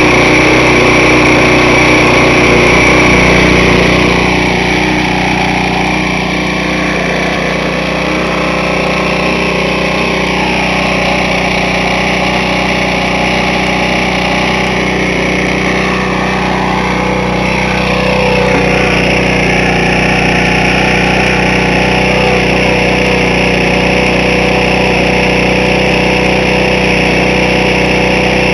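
Briggs & Stratton single-cylinder lawn mower engine running steadily. The engine was earlier run without oil: its cylinder walls are scored and the piston has almost a quarter inch of side-to-side slop.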